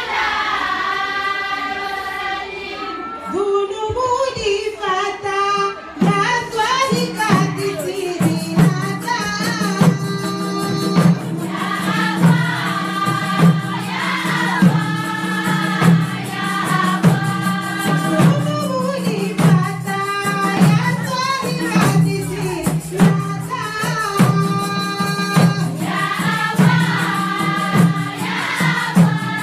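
A group of women singing a debaa chant together, with frame drums taking up a steady beat about six seconds in.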